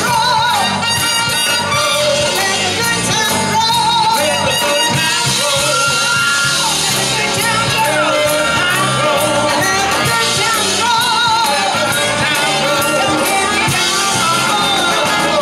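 Live band playing an upbeat rhythm-and-blues number, a woman singing lead into the microphone over drums and a trumpet.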